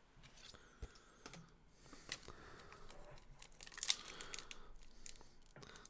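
Faint handling noise of trading cards and plastic card holders: soft rustling with a few light clicks and taps as cards are slid into sleeves.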